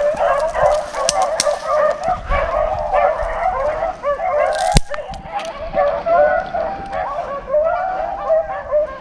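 A pack of rabbit hounds baying continuously while running a rabbit's scent trail, many voices overlapping. A single sharp crack comes about five seconds in.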